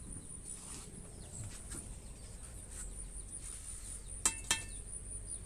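Two light metallic clinks with a short ring, a fraction of a second apart, about four seconds in, as aluminium cooking pots are touched. A faint steady high-pitched hum sits underneath.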